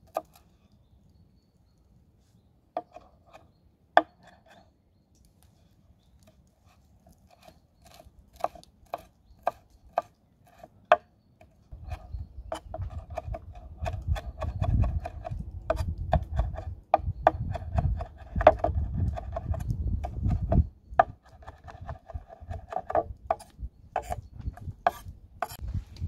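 Chef's knife chopping fresh herbs on a wooden cutting board: a few separate knocks at first, then about halfway through a fast, steady run of chops at several a second over a low rumble.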